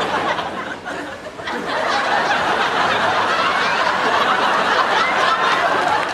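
Studio audience laughing, many voices together; it dips briefly about a second in, then swells again and keeps going.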